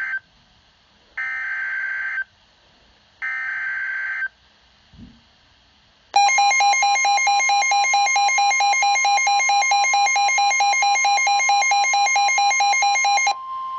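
Emergency Alert System SAME header: one burst of buzzy digital data tones ends, then two more follow, each about a second long with a second between them. About six seconds in the loud attention signal begins: a steady tone near 1 kHz layered with a fast-pulsing buzz, dropping near the end to the quieter steady tone alone. It heralds a tornado warning broadcast on NOAA Weather Radio.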